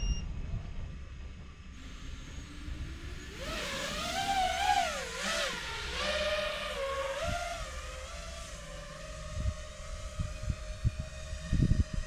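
FPV quadcopter's motors whining in flight, the pitch swinging up and down with the throttle, then holding steadier. A few low thumps near the end.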